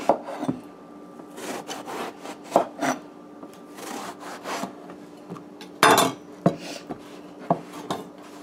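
Kitchen knife slicing through a partly peeled eggplant on a wooden cutting board: rasping strokes through the flesh, several ending in a knock of the blade on the board, the loudest about six seconds in.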